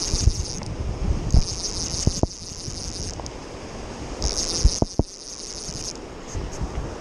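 Fly reel buzzing in three bursts of one to two seconds each, a high even whir as line runs through the reel while a hooked salmon is fought. Underneath is a low rumble of wind and river water on the microphone, with a few handling knocks.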